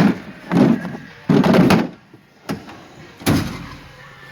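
Metal tool chest drawers sliding and shutting, with several loud clunks and knocks of tools shifting inside: about five separate hits over a few seconds, one of them a longer slide.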